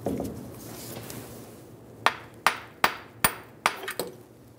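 About seven sharp hammer taps, metal on metal, over roughly two seconds, the last few quicker. They are knocking the front CV axle shaft loose so it slides out of the front differential.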